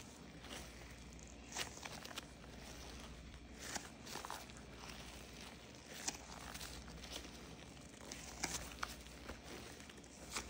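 Cloud slime being stretched and folded by gloved hands, giving soft squishes with irregular sticky pops and crackles as it pulls apart.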